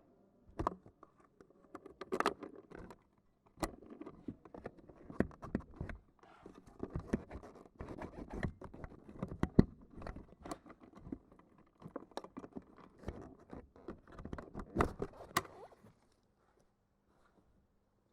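Handling noise close to the microphone: irregular rustling and scraping with many sharp clicks and knocks, which stop about two seconds before the end.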